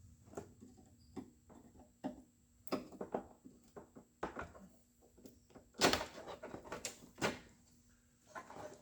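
Irregular light clicks and knocks of plastic dash parts and wiring harness connectors being handled, with two louder knocks about six and seven seconds in.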